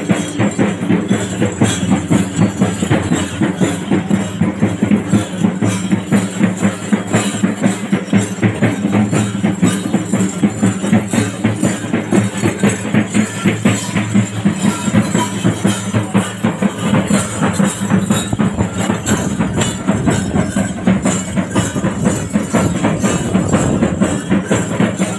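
Fast, steady percussion with metallic jingling, the rhythm that accompanies a Poothan and Thira folk-dance procession.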